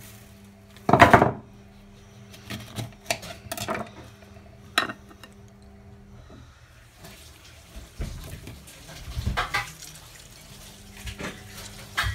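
Steel spoon clinking and scraping against a ceramic plate while mixing marinade into raw chicken wings, in scattered knocks and scrapes, the loudest about a second in.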